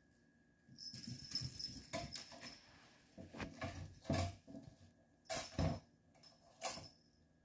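Kitten playing mostly out of sight: from about a second in, bursts of scrabbling and rattling with a faint high jingle, and a few sharper knocks toward the end.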